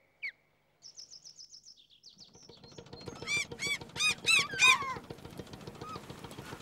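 Gulls calling: a quick run of high chirps, then a string of loud, repeated arched cries. Underneath, from about two seconds in, runs the low, steady, fast-pulsing drone of a small fishing boat's engine.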